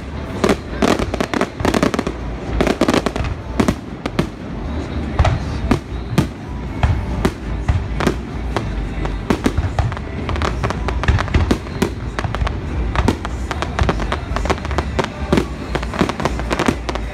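Aerial fireworks shells bursting in quick, irregular succession: a dense series of sharp bangs and pops, several a second, with no letup.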